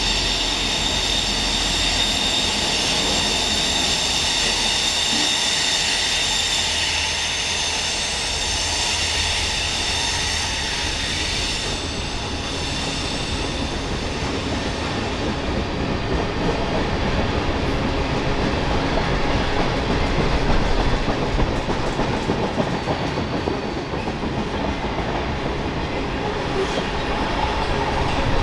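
Freight train cars rolling by on steel wheels. For the first dozen seconds several high wheel squeals ring over the rumble, then they fade and the clatter of the wheels grows louder.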